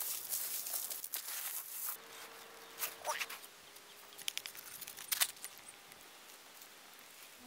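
Pebbles crunching and shifting under hands and knees on a gravel beach, then a handful of sharp scrapes and clicks about three to five seconds in.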